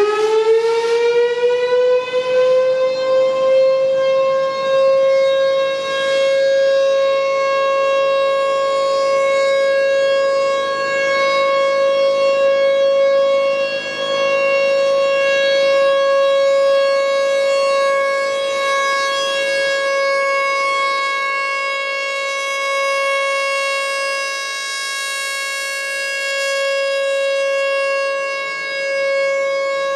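Federal Signal Thunderbolt 1000 outdoor warning siren sounding the Alert signal. The tone finishes winding up in the first few seconds, then holds one steady pitch, with the loudness swelling and fading slowly as the rotating horn sweeps around.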